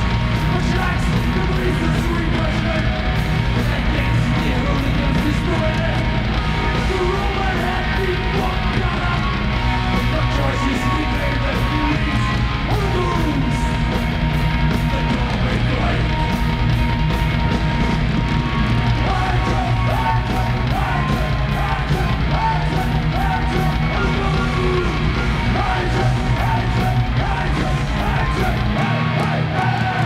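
Heavy metal band playing live: distorted guitar, bass and pounding drums with cymbal hits, and yelled vocals. The deepest bass drops out near the end.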